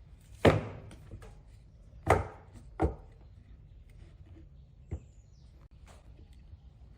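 Sharp knocks on wood, four in all at uneven intervals, the first, about half a second in, the loudest.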